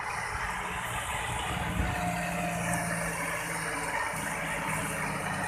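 Massey Ferguson 9500 tractor's diesel engine running steadily under load while pulling a disc harrow.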